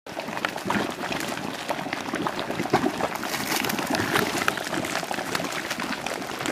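Boiling mud pool in a geothermal area bubbling: thick mud plopping and popping in many short irregular bursts over a steady bubbling noise.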